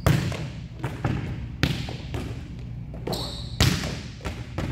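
Volleyballs being hit and bouncing on a hard indoor court floor: about five sharp smacks, each echoing in the hall. A brief high squeak comes a little after three seconds.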